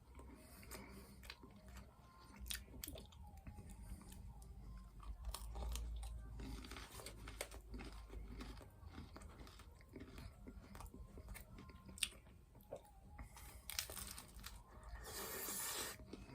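Close-up eating sounds: chewing with many sharp, crisp crunches as bites are taken. There is a short hiss near the end.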